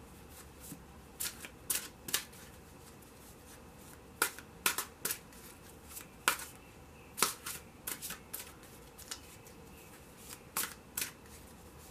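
Tarot cards being shuffled by hand: irregular groups of two or three sharp card taps, with quiet room tone between.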